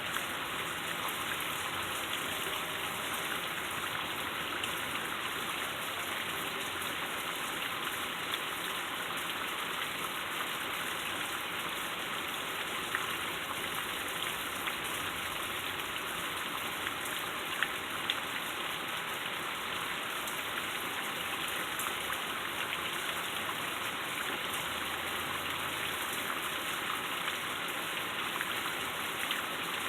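Heavy rain falling steadily, a dense patter of drops with a few sharper hits about two-thirds of the way through.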